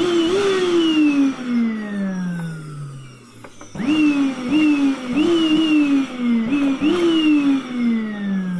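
1700-watt electric vacuum cleaner motor revved in bursts like a racing engine: its whine jumps up in pitch, then winds slowly down as it coasts. One long wind-down fills the first three seconds, then from about four seconds in come a run of quick rev blips and another long wind-down.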